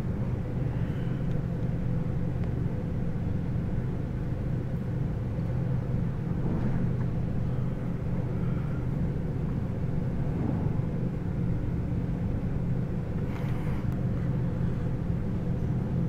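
Freight train rolling past: a steady low rumble of its cars running over the rails.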